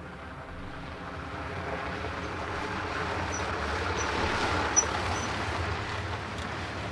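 A milk lorry approaches on a gravel road and pulls up, its engine and tyres growing louder to a peak about two-thirds of the way through, then easing as it slows. A few short high squeaks come as it draws up.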